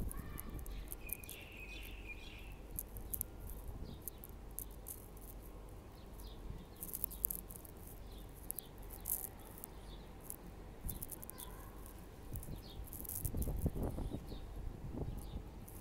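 Faint outdoor ambience: scattered short, high-pitched ticks over a low steady rumble, with a louder stretch of rumble near the end.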